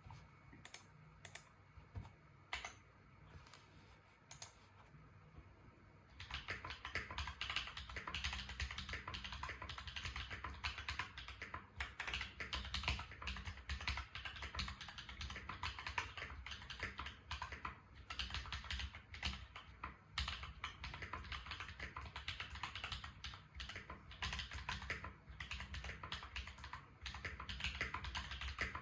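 Typing on a Space65 mechanical keyboard with Holy Panda tactile switches, a carbon fibre plate and GMK Lux keycaps. For about six seconds there are a few separate keystrokes, then steady fast typing.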